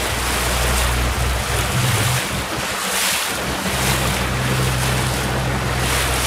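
Wind buffeting the microphone and choppy water rushing and splashing past a moving boat. Under it is the steady low hum of the camera boat's motor, which fades out for about a second midway and then comes back.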